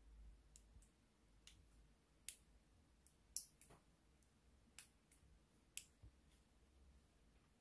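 Faint, sharp clicks and small pops, about ten at irregular intervals, from a plastic squeeze bottle of mayonnaise being pressed as it pipes mayonnaise onto bread.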